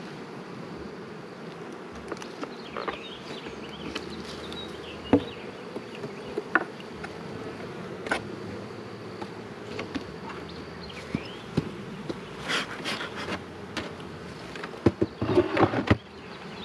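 Honeybees buzzing in a steady hum around an opened hive, with occasional sharp wooden knocks and scrapes as the hive boxes and frames are set back together, a cluster of knocks near the end as the outer cover goes on.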